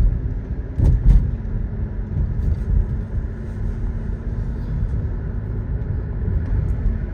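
Car running, heard from inside the cabin: a steady low rumble with a faint even hum, and a couple of sharp knocks about a second in.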